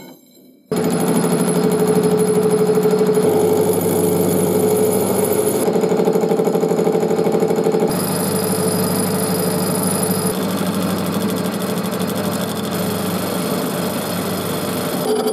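Metal lathe turning a metal bar, a steady machine hum and whine from the spinning chuck and drive with the cutting tool on the work. It starts suddenly about a second in, and its pitch pattern shifts a few times.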